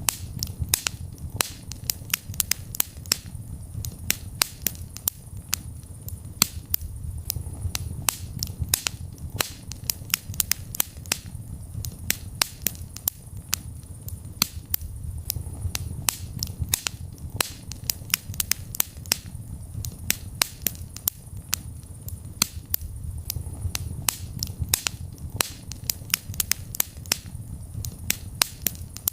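Fire burning in a fireplace, crackling: frequent sharp snaps and pops, several a second, over a low steady rumble of the flames.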